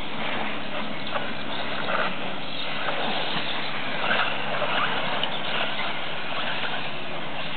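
Electric 4WD RC buggies racing: whining brushless motors and drivetrains that swell briefly as cars rush past, over a steady noisy background.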